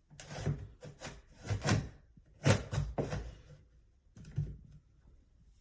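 Handling noise: a run of irregular knocks and rubs, about eight hits, the loudest about two and a half seconds in, as hard objects are moved and set down.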